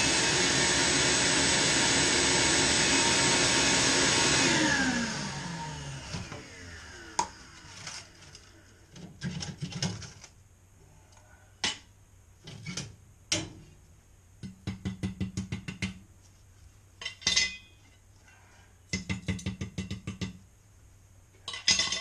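Shop vacuum sucking crud out of a gas boiler's burner compartment, switched off about four seconds in, its motor whining down. Then scattered clanks, scrapes and rattling as parts inside the boiler are handled by hand.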